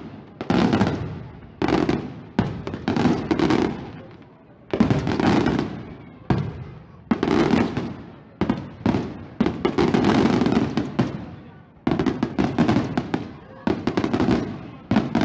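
Aerial firework shells bursting one after another, each bang trailing off in a long rumble, with a quicker, crackling series of bursts near the end.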